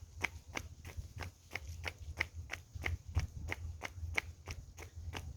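Footsteps of a person walking briskly, evenly spaced at about three steps a second, over a steady low rumble.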